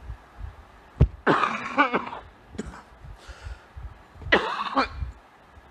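A man coughing and clearing his throat into a microphone, in two short bouts: one about a second in, just after a sharp click, and another near the end.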